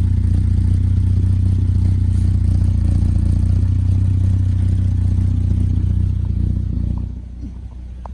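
Hyundai Genesis Coupe engine idling steadily through an ISR race cat-back exhaust, a deep even drone that drops away about seven seconds in.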